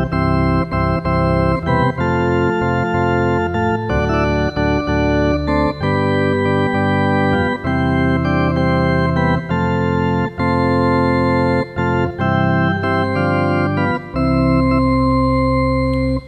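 Yamaha electronic keyboard playing a hymn introduction on an organ sound: sustained chords that change every second or so, with brief breaks between them, stopping just before the choir comes in.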